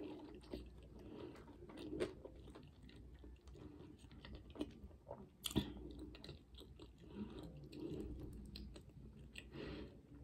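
A person chewing a mouthful of fried flounder sandwich close to the microphone, with wet smacks and small mouth clicks and a sharp click about five and a half seconds in. Near the end the sandwich goes back to the mouth for another bite.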